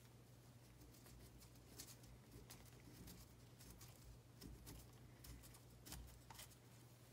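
Near silence with a low steady hum and a scattering of faint clicks and taps from gloved hands working the metal end housing of a Lucas CAV DPA diesel injection pump loose.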